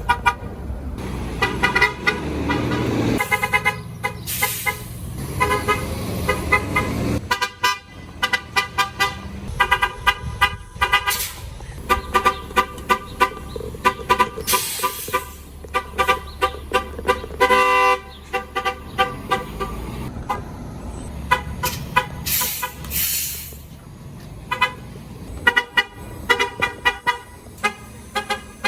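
City bus horns tooting in many short repeated taps, often several a second, over the low running of bus engines. A few brief hisses come in between.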